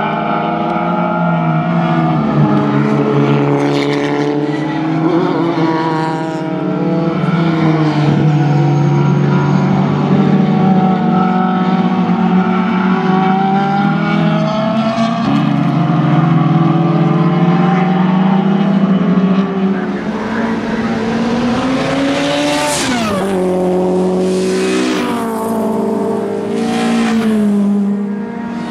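Several racing cars' engines running hard as they drive past around the circuit, the pitch rising and falling as they accelerate and shift gear, with one steep drop in pitch about three quarters of the way through.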